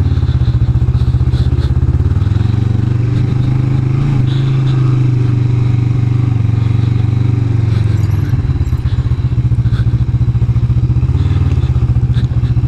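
Kawasaki Vulcan 500 (EN500) parallel-twin motorcycle engine running under way. It holds a steady note through the middle, then drops to a slower, lumpier beat about eight seconds in.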